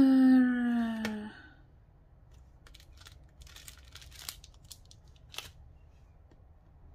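A woman's voice holding a long hummed note that slides slightly down and stops about a second in. Then soft, scattered crinkling and rustling of a plastic bag and paper scraps being handled.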